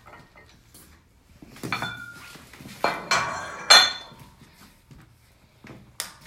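Metal barbell weight plates clanking and ringing as small 2.5 kg plates are slid onto the sleeves of a racked barbell. There are several separate clanks, the loudest about two thirds of the way through.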